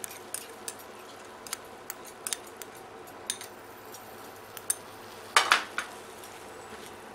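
Wooden spatula stirring thick masala in a non-stick pan, with scattered light taps and scrapes, and a louder clatter of a metal spoon set down in a small bowl a little over five seconds in.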